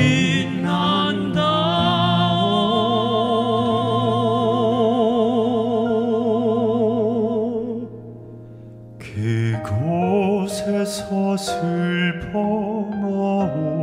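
Male voices singing together in a trained operatic pop style, holding one long note with vibrato over a steady instrumental accompaniment. The sound drops away about eight seconds in, and a second later a single voice starts a new sung phrase.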